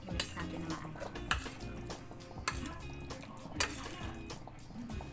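A metal spoon stirring minced pork in a stainless steel bowl, scraping and clinking against the metal with a sharp clink about once a second.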